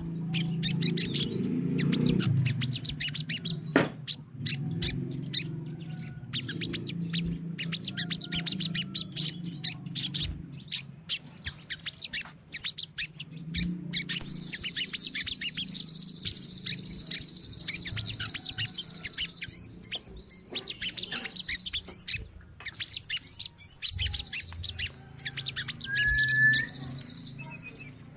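A colony of sogon sunbirds chirping rapidly and continuously, with a dense, high trill held for several seconds about halfway through. A low steady hum runs underneath.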